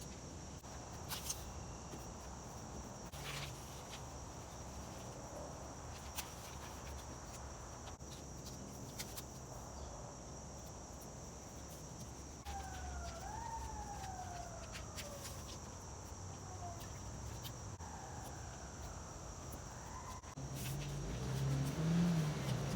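Faint outdoor ambience of insects keeping up a steady high drone, with a few small clicks and taps. Midway a distant siren wails, rising sharply then sliding down slowly, and sounds again more faintly a few seconds later.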